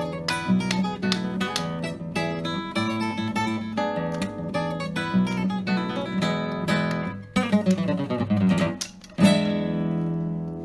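Background music: an acoustic guitar strumming chords, ending on one strong chord about nine seconds in that rings on.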